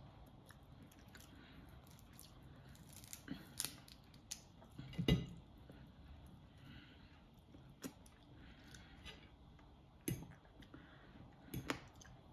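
Mud crab shell being cracked and pulled apart by hand, giving scattered sharp cracks and clicks; the loudest comes about five seconds in, with a few more near the end.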